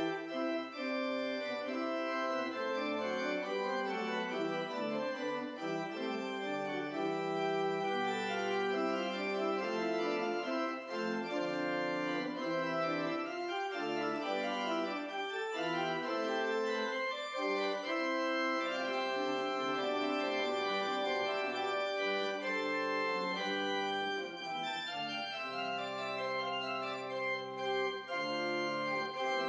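Church organ playing held chords, several notes sounding together and changing at a slow, even pace.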